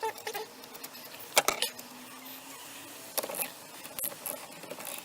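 A few separate sharp metal clicks and clinks as the steering-wheel hub and tools are handled at the steering column.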